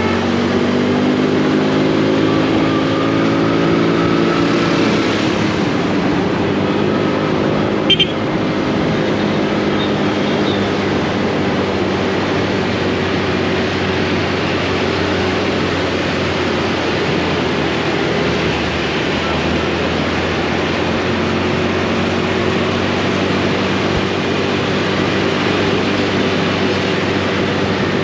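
Motorbike engine running in dense city traffic, rising in pitch over the first few seconds as the bike speeds up, then holding steady amid the traffic noise. A single sharp click or knock about eight seconds in.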